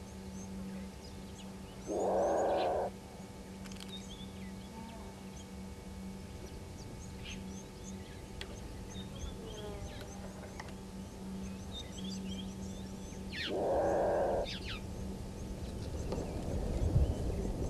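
An unidentified animal call, about a second long, heard twice about eleven seconds apart, over small birds chirping and a steady low hum. Low rumbling noise rises near the end.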